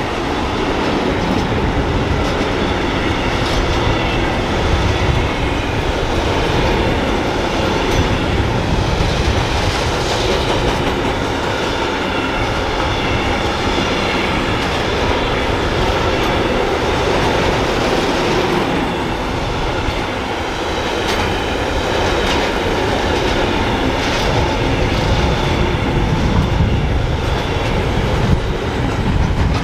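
An electric train passing close by, its wheels running and clattering on the rails in a continuous loud rush, with faint high wheel squeal now and then.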